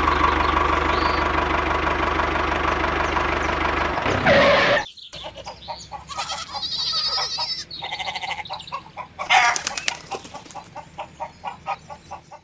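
A small engine or motor running steadily with a low hum for about four seconds, ending just after a short, louder call with sliding pitch. Then quieter farm-animal calls, clicks and a high warble follow.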